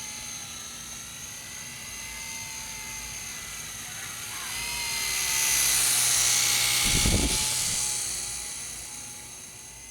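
Blade CX2 coaxial RC micro helicopter's electric motors and rotors whining steadily; the whine swells to its loudest about halfway through as the helicopter passes close, then fades away, with a brief low thump near its peak.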